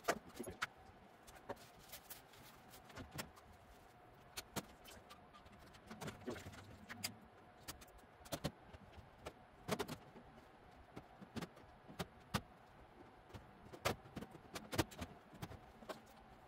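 Irregular light clicks, taps and metallic clinks of metal cabinet doors, panels and small hardware being handled and fitted, over a faint steady hum.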